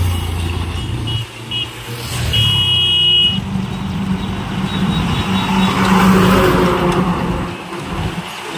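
Heavy lorries and motorbikes passing on a road: a steady low engine rumble with tyre noise, swelling as a vehicle goes by about six seconds in. A short, high-pitched horn toot sounds about two and a half seconds in.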